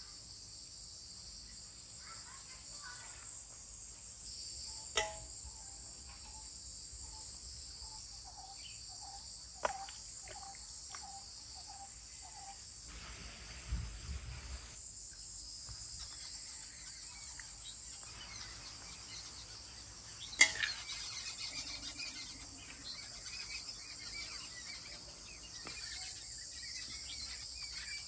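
Steady, high-pitched chorus of insects chirring in the background, with a few sharp knocks spread through it and a run of short, evenly spaced chirps partway through.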